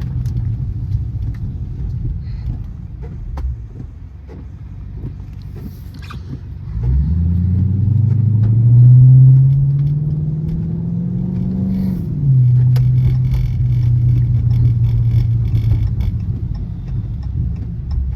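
Chrysler 300C engine running at a low, steady cruise, then accelerating hard about seven seconds in, its revs climbing for about five seconds. The revs drop sharply at an upshift, and the engine holds steady at the lower pitch before easing off.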